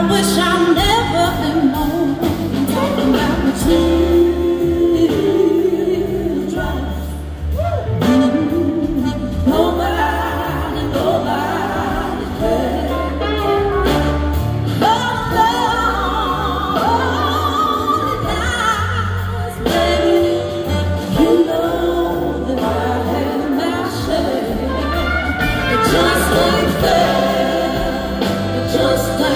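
Live soul-blues band playing, with a woman singing lead over electric guitar, horns, drums and bass, recorded from the audience through a large PA.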